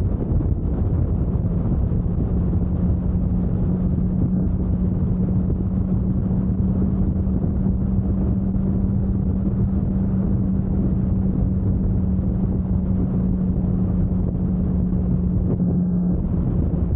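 Motorcycle engine running at a steady cruising speed of about 100 km/h, one even tone, under heavy wind rumble on the microphone.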